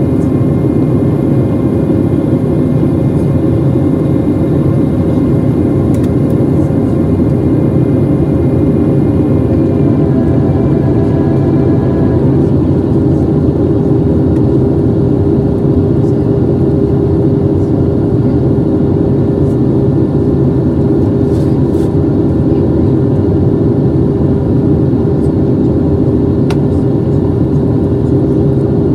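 Boeing 737-700's CFM56-7 turbofan engines and airflow heard inside the cabin in flight: a loud, steady rushing hum with a steady whining tone whose pitch shifts about twelve seconds in.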